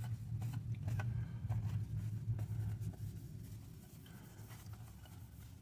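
Paper towel rubbing and scrubbing along a steel Glock pistol barrel as solvent is wiped off it, with light handling clicks. A low steady hum sits underneath and fades out about halfway through.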